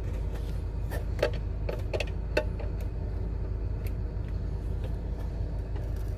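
Needle-nose pliers clicking and scraping against a soldered part on a car radio's circuit board as it is pried loose, about eight sharp irregular clicks over a steady low hum.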